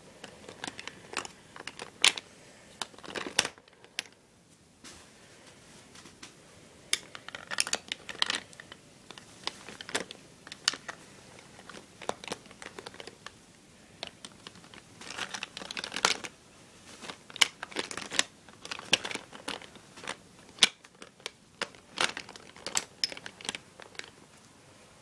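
Hands rummaging through a zippered cosmetic bag full of makeup: the bag's material crinkles and the makeup items and brushes click and knock against each other in irregular bursts, with a couple of short pauses.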